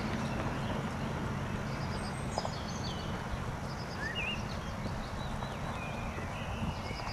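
Muffled hoofbeats of a horse trotting on a sand arena under a steady low rumble, while small birds sing several short, high chirping phrases, some sliding in pitch.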